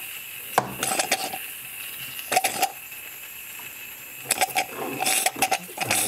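Small live-steam model engine being opened up to steam: a steady steam hiss with three spells of rapid metallic clinking and spluttering as the engine turns over in fits. It has water in the cylinder, a bit of hydro lock.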